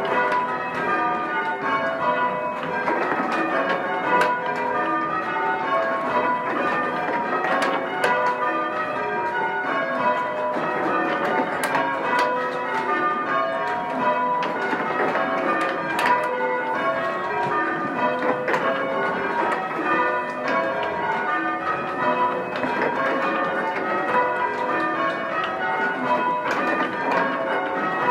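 A ring of six church bells being change rung: full-circle bells struck one after another in an unbroken, evenly paced stream of changes as a method is rung.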